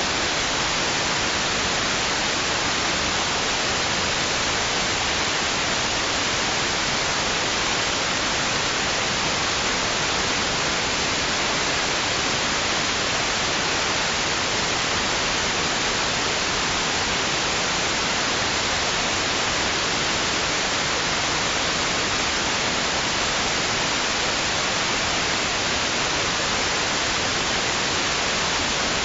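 Steady white-noise hiss, even and unchanging, with no swell or break, brightest in the upper range.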